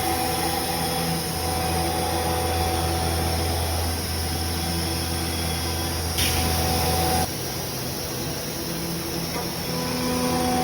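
Large CNC router running steadily while milling epoxy tooling board, a low hum under a held spindle whine. About six seconds in a hiss rises for about a second, and then the low hum drops away.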